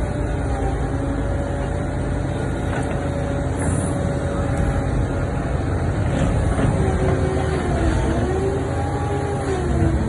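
Excavator's diesel engine running with a steady low rumble and a hydraulic whine over it; near the end the whine dips and rises in pitch as the machine works.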